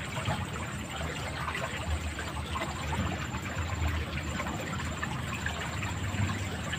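Steady noise of water flowing along a muddy ditch after rain, with a low rumble underneath.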